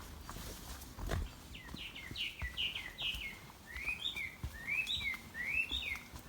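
A songbird singing: a quick run of about six descending notes, then a repeated phrase of two-part notes that rise and fall, about four times. A few faint low thuds, likely a hiker's footsteps on the trail, sit underneath.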